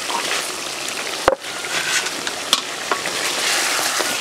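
Goose meat in masala sizzling as it fries in a large metal pan, stirred and scraped with a wooden spatula. A sharp knock comes about a second in, and a lighter one a little later.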